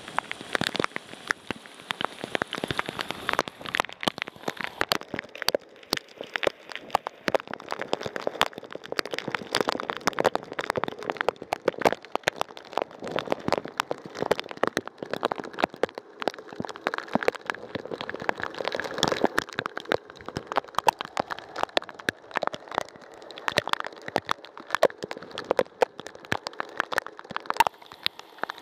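Rain shower: a dense, irregular stream of raindrop ticks hitting a hard surface close to the microphone.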